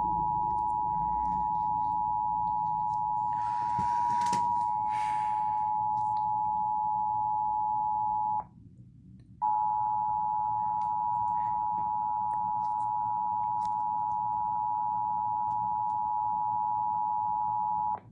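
Emergency Alert System attention signal: two steady tones sounded together (853 and 960 Hz), held for about eight seconds, cut off for about a second, then sounded again for about eight more. A short hiss rises over the tone about four seconds in.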